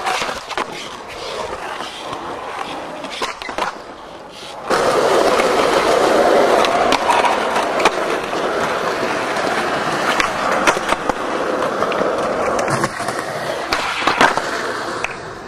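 Skateboard on concrete: the board scrapes along a ledge near the start, then after about five seconds its wheels roll loudly and steadily on the concrete. Sharp clacks of tail pops and landings sound several times.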